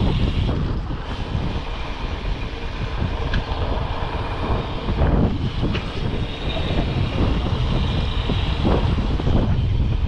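Wind buffeting the microphone: a heavy, uneven low rumble that rises and falls without a break.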